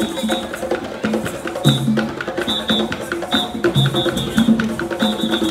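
A group of drummers playing tall hand drums in a fast, steady rhythm, with sharp slaps and short lower pitched tones.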